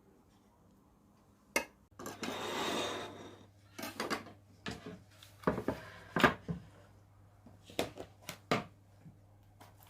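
Kitchenware being handled: a click, about a second of rustling, then a run of knocks and clatters like dishes and utensils set down and picked up, over a faint low hum.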